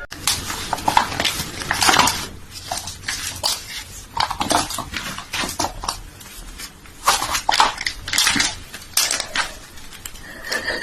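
Irregular clattering and rattling of hard objects, like dishes or utensils being knocked and scraped about.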